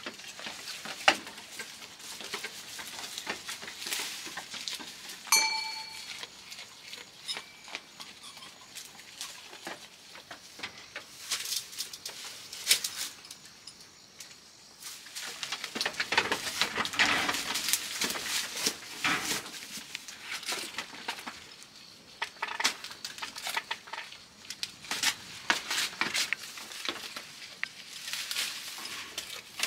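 Goats feeding on fern fronds and leaves: steady rustling and crunching of foliage with scattered clicks and knocks. A small neck bell clinks once, briefly ringing, about five seconds in.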